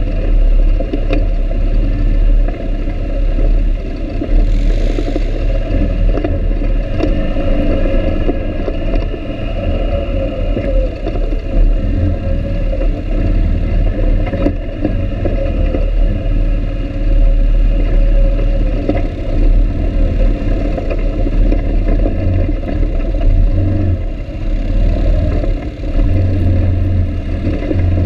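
ATV (quad) engine running steadily while riding a rough dirt trail, its note wavering a little with the throttle, over a heavy low rumble with occasional knocks as the machine rides over the bumps.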